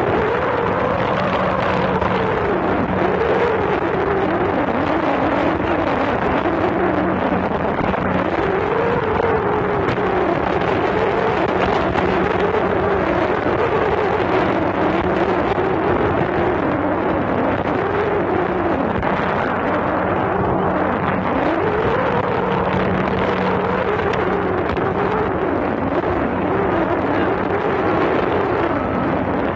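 Speedboat engine running, its pitch swinging up and down every few seconds over a steady rushing noise.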